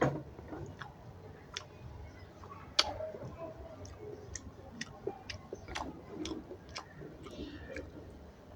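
Eating sounds: sharp, irregular clicks and smacks about a second apart, the loudest a little under three seconds in, with faint chewing between them.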